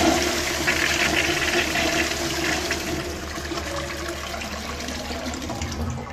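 Push-button toilet flushing: water rushes and swirls through the bowl, loud at first, easing off after two or three seconds, then dying away near the end.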